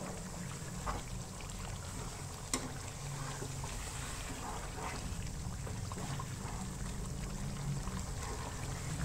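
Steel ladle stirring thin, brothy mutton curry in a nonstick karahi, the liquid sloshing and trickling, with a sharp click of the ladle against the pan about two and a half seconds in. A steady low hum runs underneath.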